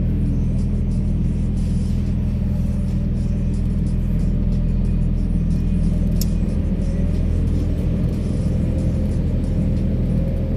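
Scania R 660's V8 diesel engine running steadily at low speed as the truck rolls slowly along.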